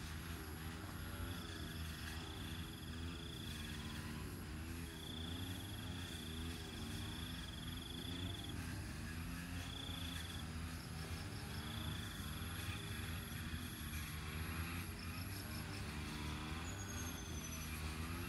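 Insects trilling at a high, steady pitch in repeated stretches of one to four seconds, over the steady low hum of a distant engine whose pitch wavers.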